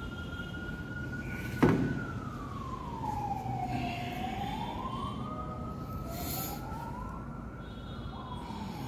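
A siren wailing in slow swoops, its pitch holding, then falling and rising again, with a second wail overlapping near the end. A single sharp knock about two seconds in is the loudest sound.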